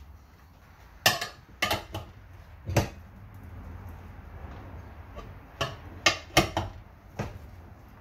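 Metal tire-mounting tools clanking: a steel mounting lever bar and tire spoon knocking against a manual tire changer and the wheel rim as a motorcycle tire is levered onto the rim. Sharp, separate clanks come in two clusters, one about a second in and another past the middle.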